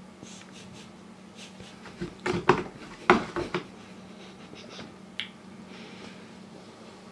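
A kitten's paws scrabbling and tapping in play, a cluster of sharp scratchy knocks about two to three and a half seconds in, over a faint steady hum.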